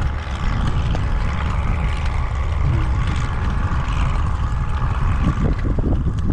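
Strong wind buffeting the microphone: a steady, loud low rumble with gusting noise.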